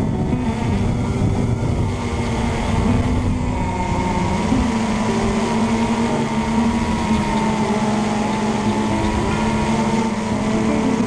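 RC Logger Eye One Xtreme quadcopter's electric motors and propellers buzzing steadily, heard from the GoPro on board. The pitch drifts a little as the throttle changes.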